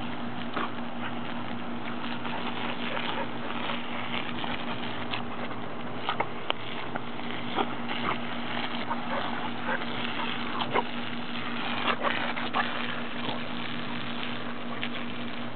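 Garden hose spray nozzle running, a steady hiss, with irregular splashes and snaps as a Border Collie bites at the water stream.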